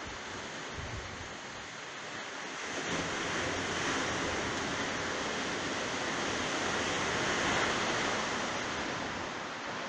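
Steady rushing of ocean surf, growing louder about three seconds in.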